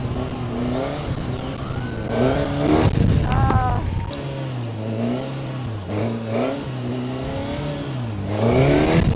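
Suzuki GSX-S1000GT's inline-four engine revving up and down during wheelies, its pitch climbing and falling several times, loudest a few seconds in and again near the end.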